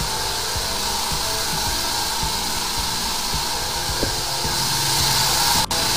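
High-pressure sewer jetter running, its water jet spraying with a loud, steady hiss while the jetting hose is fed into a drain.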